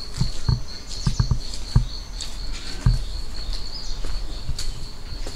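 Footsteps on a wet, muddy alley floor, a few irregular dull thuds in the first three seconds, over a steady high-pitched trill.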